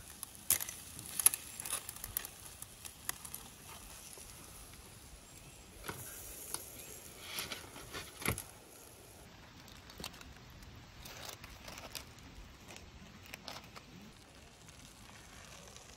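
Metal skewers clinking as they are handled over charcoal and laid onto a steel tray: scattered sharp clicks, the loudest about a second in, with fainter ticks between.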